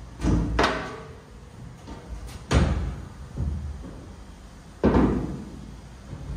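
Aluminium sheet panel knocking and clanking against an aluminium boat hull as it is pushed into place: about five sharp knocks a second or two apart, each with a short ring.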